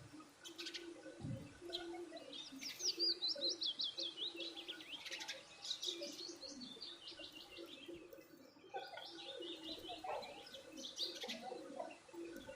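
Small birds chirping in fast runs of quick, high notes that step down in pitch, with lower calls underneath; the chirping breaks off briefly about eight seconds in.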